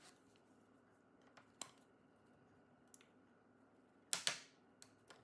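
Plastic retaining clips of the MSI Thin A15 B7V's bottom cover snapping free as a plastic pry pick works along the seam. A few quiet clicks, then a louder snap just after four seconds in, followed by a couple of small clicks.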